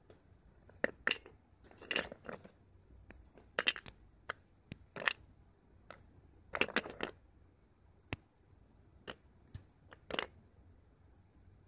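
Red slate pencils being bitten and crunched: a string of sharp, dry crunches at uneven intervals, roughly one every second or so, a few of them longer and grittier.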